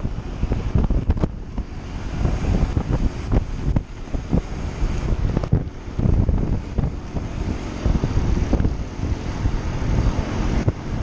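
Wind buffeting the microphone on a mountain bike ridden fast in a racing pack: a loud, uneven rumble that comes and goes in gusts, with a hiss above it.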